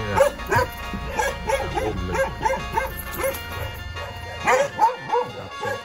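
A dog barking in quick runs of short yips, about three a second, over background music.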